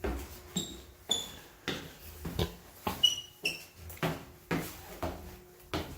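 Footsteps walking at a steady pace, about two steps a second, with a few short high squeaks in between.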